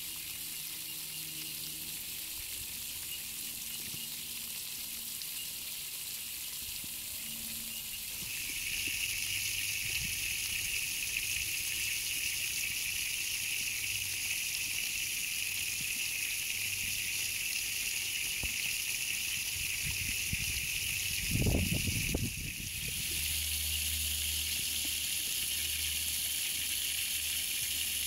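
Garden hose spraying a steady jet of water onto grass and a drinking horse's muzzle, a continuous hissing splash that grows louder about a third of the way through. A brief louder rush comes about three quarters of the way in.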